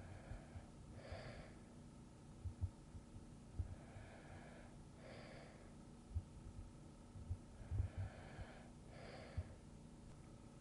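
A sleeping person breathing softly and slowly, three unhurried breath cycles, each a pair of soft airy sounds, in and out, about four seconds apart. Faint low thuds are scattered between the breaths.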